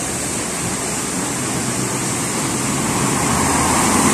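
A coach bus's engine running as it drives slowly through floodwater on a street, its wheels churning and splashing the water. The sound grows louder near the end as the bus passes close by.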